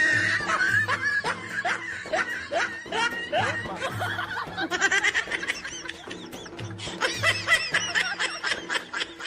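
Laughter in quick, short repeated pulses, over background music with a steady low beat.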